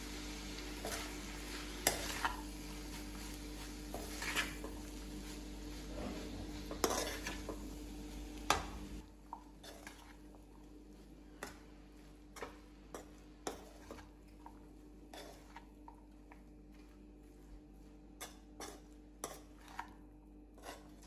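A spatula stirring and scraping through cooked rice in a kadai, with scattered clicks and taps against the pan as the rice is mixed into the capsicum and chickpea masala. A faint steady hiss lies under the stirring for the first nine seconds or so, then drops away, leaving only the intermittent taps.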